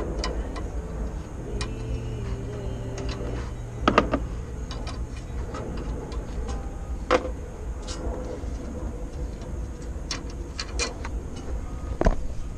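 Scattered clicks and light metallic knocks of hand tools and mounting hardware being worked on a car horn bracket, with louder knocks about 4, 7 and 12 seconds in, over a steady low hum.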